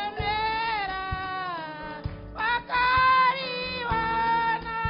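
A small vocal group singing a gospel song into handheld microphones, voices gliding and holding long notes over a steady low beat.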